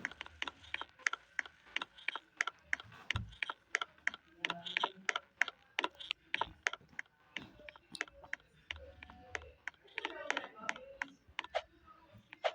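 A rapid run of sharp clicks, about five a second and unevenly spaced.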